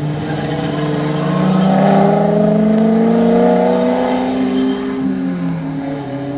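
Several race cars' engines at full throttle on a circuit, their pitch rising slowly as they accelerate. They are loudest about two to three seconds in and ease off near the end.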